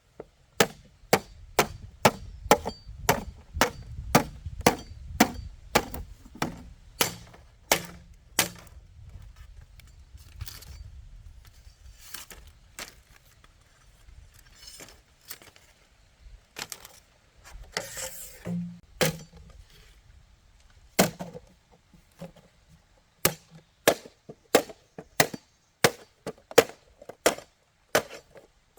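A tool striking bamboo in a steady run of sharp knocks, about two a second. The knocks thin out midway, with a short scraping noise about 18 seconds in, then pick up again at the same pace.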